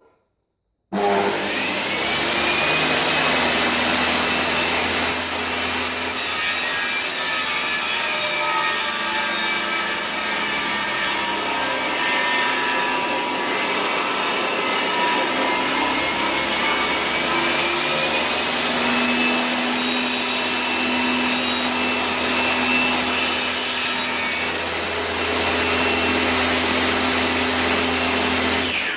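Makita 2704N table saw running with its blade cutting through wood. The sound starts abruptly about a second in and holds steady and loud, with a small dip in level a little before the end.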